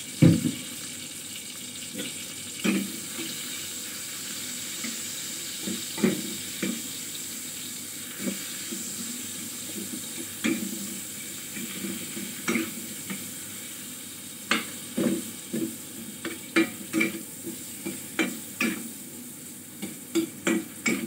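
Pointed gourds sizzling in oil in a steel pan while a spoon scrapes and knocks against the pan as they are stirred with salt and turmeric. The knocks come irregularly and grow more frequent in the second half.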